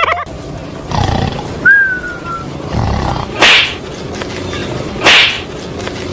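An animal making harsh snarls, two loud ones about three and a half and five seconds in, with a short falling squeak a little before two seconds.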